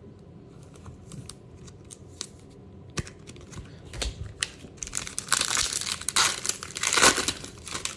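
Foil wrapper of a baseball trading-card pack being torn open and crinkled. A few light clicks and taps come first, then the crinkling builds about five seconds in and runs for a couple of seconds.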